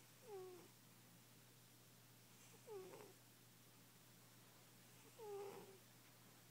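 Overweight house cat snoring in its sleep: three short pitched snores, one with each breath, about two and a half seconds apart.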